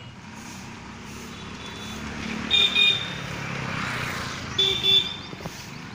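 Vehicle horn giving two quick double toots, over the broad noise of traffic that swells as a vehicle passes.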